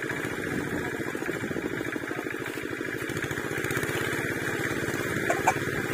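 A small engine running steadily with a fast, even chug. Two brief clicks sound near the end.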